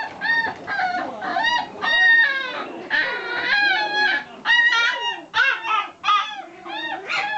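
Japanese Chin puppies whining and squealing: a rapid string of short, high-pitched, rising-and-falling cries, with one longer drawn-out whine about three seconds in and calls at different pitches overlapping.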